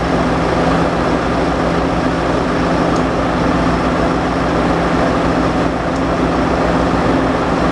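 A large engine running steadily at constant speed, with an even low pulse.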